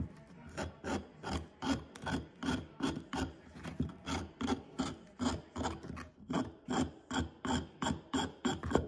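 Hand file rasping back and forth over the end of a wooden chair spindle's tenon, about three even strokes a second, scraping off old glue down to raw wood so the joint can be re-glued.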